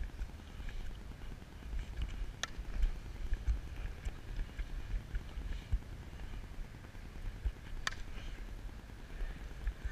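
Wind buffeting an action camera's microphone, a steady low rumble with irregular thumps. Two sharp, distant cracks about five and a half seconds apart: a bat hitting a softball.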